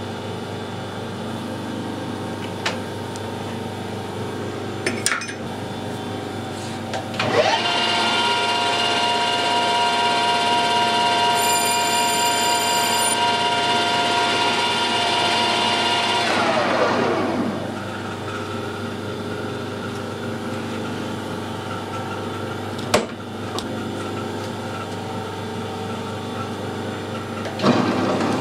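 Metal lathe running, its spindle turning a large metal workpiece with a steady machine hum. About seven seconds in a motor whine rises in pitch, holds steady for about nine seconds, then falls away; a few sharp clicks are heard.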